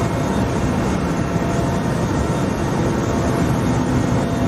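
Helicopter cabin noise: the rotor and engine of the helicopter in flight, a steady, even rumble heard from inside the cabin.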